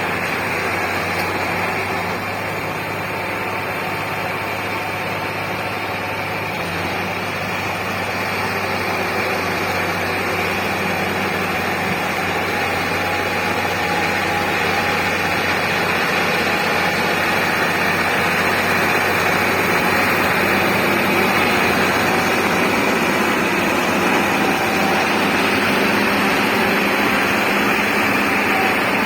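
Heavy diesel engine of a dump truck or bulldozer running steadily, growing a little louder partway through.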